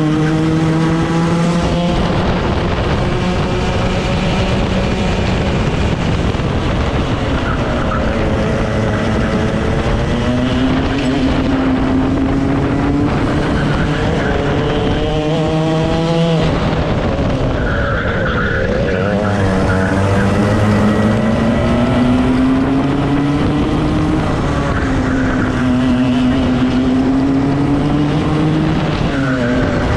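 Club 100 racing kart's two-stroke engine at race pace, heard on board. Its pitch climbs steadily as it accelerates, then drops abruptly as the throttle is lifted, several times over.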